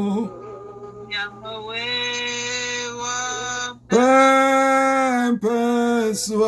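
A man singing a slow prayer chant in long, held notes, each sustained for a second or more with short breaks between them.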